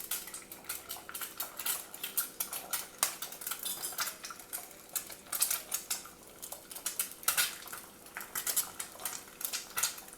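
A metal utensil clinking and scraping against cookware in quick, irregular strokes while eggs are worked for an omelet.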